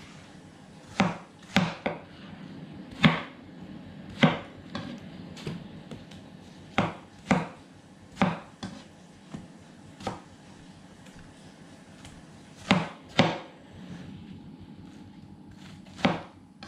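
Kitchen knife cutting watermelon into chunks on a plastic cutting board: irregular sharp knocks of the blade striking the board, sometimes in quick pairs, with a pause of a couple of seconds in the middle.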